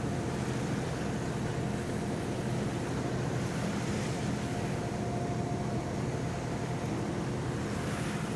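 A boat's engine running steadily under way, a constant drone with wind and rushing water over it.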